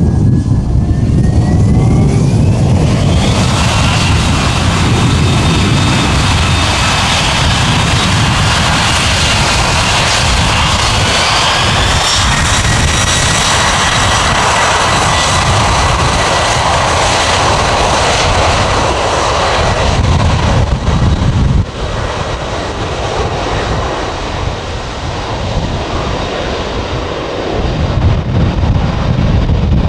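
Boeing 767-200 freighter's two jet engines spooling up to takeoff power: a rising whine over a deep rumble, rising again about twelve seconds in, then held steady as the jet rolls down the runway. The loudness drops suddenly about two-thirds of the way through and builds again near the end.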